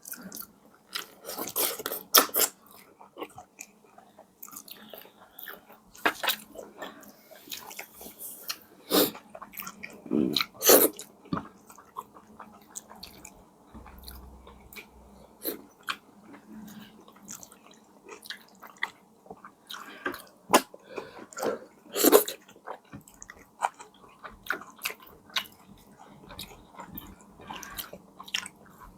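A person chewing food close to the microphone, with irregular wet mouth clicks and a few louder bites.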